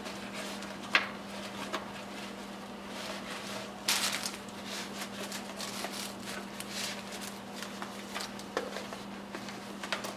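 Rustling and light knocks as a welding helmet is pulled out of its carry bag and handled, with a sharp click about a second in and a longer rustle about four seconds in. A steady low hum runs underneath.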